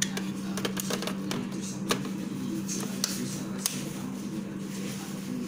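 Sharp plastic clicks and knocks of a Nescafé Dolce Gusto capsule holder being slotted into the coffee machine and the machine being handled, about six clicks in the first few seconds, over a steady low hum.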